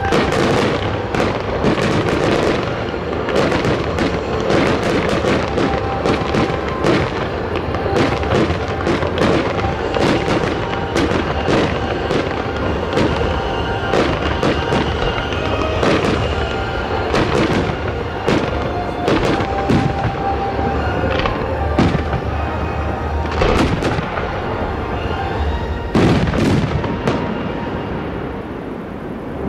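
Fireworks display: aerial shells bursting in quick succession, a dense run of booms and crackles, with the heaviest bursts near the end.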